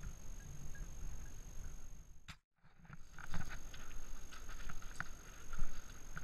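Low wind and handling rumble on an action camera's microphone, cutting out briefly a little over two seconds in. Then footsteps crunching on a gravel and pebble path, with scattered scrapes and clicks of stones underfoot.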